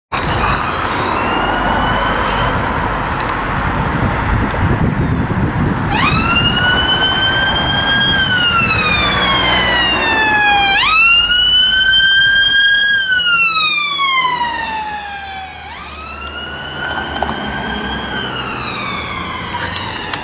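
Fiat Ducato ambulance's siren in a slow wail: each cycle jumps up quickly, holds briefly, then falls slowly, repeating about every five seconds, with engine and road noise underneath. It is faint at first, loud from about six seconds in, and eases off near the end.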